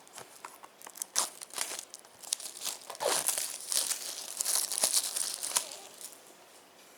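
Plastic wrapping on a new 4K UHD Blu-ray case crinkling and tearing as it is pulled open, with a quick run of crackles and snaps that is busiest in the middle and dies away near the end.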